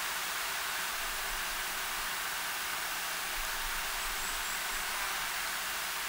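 Steady, even hiss of background noise, with a few faint, very high, short call notes about four seconds in, which fit the quiet call of a male Narcissus flycatcher.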